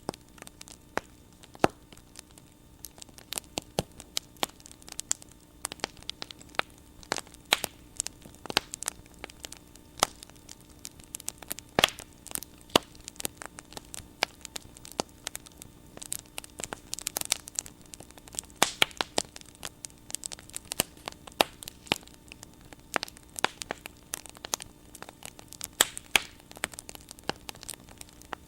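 Bonfire crackling: wood burning with irregular sharp pops and snaps, several a second, over a faint steady hum.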